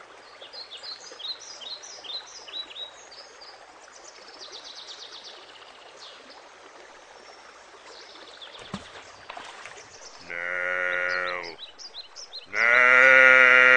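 Faint quick chirps over a quiet outdoor ambience. Near the end come two long, steady, bleat-like calls, each a second or more long, and the second is much louder.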